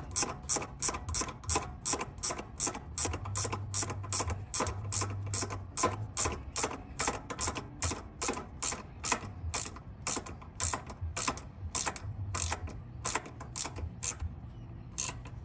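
Ratchet wrench clicking in an even run, about three clicks a second, as the ignition coil's mounting bolts are tightened down; the clicking stops near the end.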